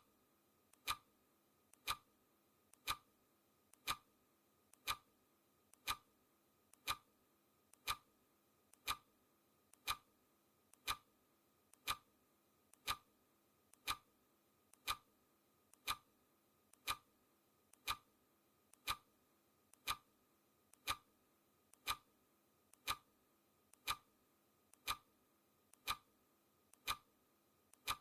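Clock ticking sound effect marking each second of a countdown timer: one sharp tick every second, each with a much fainter click just before it.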